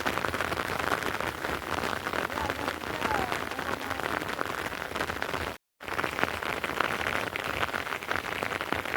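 Steady rain falling, a dense patter of drops, cutting out for a split second about six seconds in.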